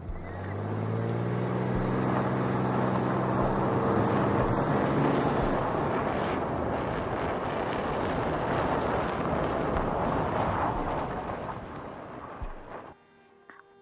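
Sound effect of a car: an engine running with a steady low hum that fades after about six seconds into an even rushing noise of the car driving, cut off sharply near the end.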